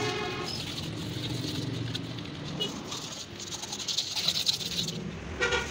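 Brush scrubbing and small metal rattles on a diesel truck engine's cylinder head, strongest about four seconds in, over a steady low hum of traffic.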